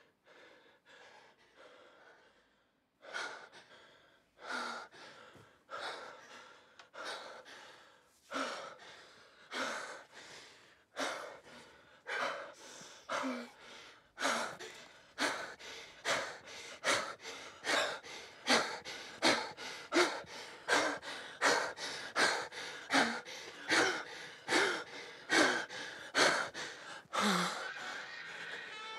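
A woman breathing heavily and gasping in a steady rhythm, with some breaths voiced. Faint at first, the breaths grow louder from about three seconds in and quicken to about two a second in the second half.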